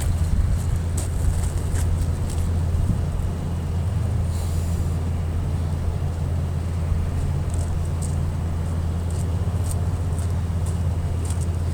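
Steady low engine hum with scattered faint ticks and a brief hiss about four and a half seconds in.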